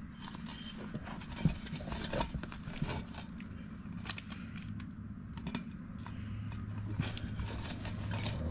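Scattered clicks and short scrapes of hands working a rubber inner tube into a dirt bike tire around the rim lock, over a steady low hum that grows a little louder near the end.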